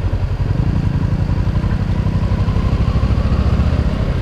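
Motorcycle engine running as the bike rolls slowly along, a steady low throb.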